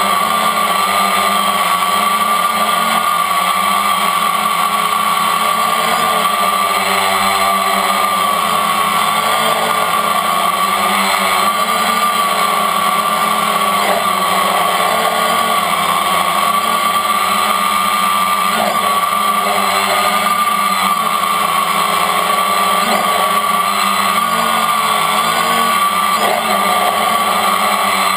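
Brushless motors and propellers of a multirotor drone, heard up close from its onboard camera: a loud, steady whine whose pitch wavers slightly up and down as the motor speeds are adjusted in a hover.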